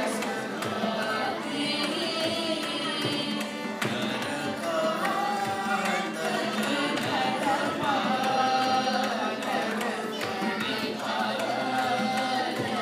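Group of voices singing a Carnatic devotional tarangam in raga Aarabhi, Adi tala, with gliding ornamented phrases, accompanied by violin and the steady strokes of a mridangam.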